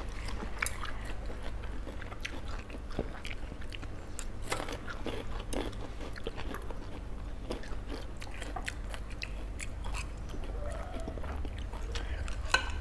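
Close-miked chewing and biting of a tossed pork salad (tré trộn with nem), with many small crisp clicks scattered through it. A low steady hum lies underneath.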